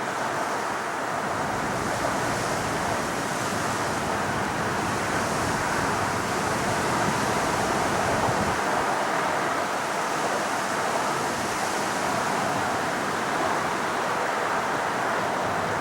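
Steady roar of jet engines from an Airbus A350 airliner, its Rolls-Royce Trent XWB turbofans heard at a distance as an even rushing noise that swells a little in the middle.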